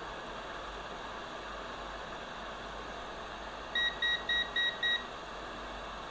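Five short electronic beeps in quick succession, about four a second, from a piece of bench repair equipment, over a steady hiss.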